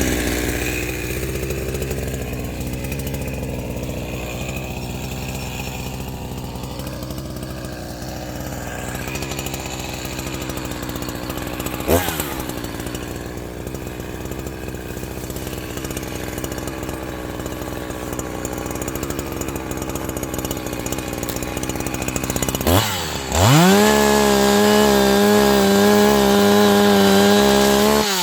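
Chainsaw engine idling, blipped briefly about halfway through, then revved up to full throttle about 23 s in and held at a loud, steady high pitch until it falls away at the end.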